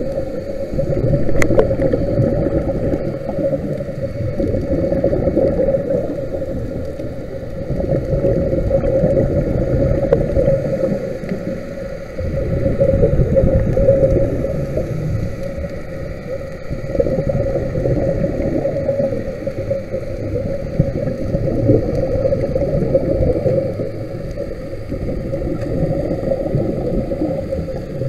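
Muffled underwater noise picked up by a camera held in the water: a low churning rumble of moving water that swells and fades every few seconds, with a steady hum running under it.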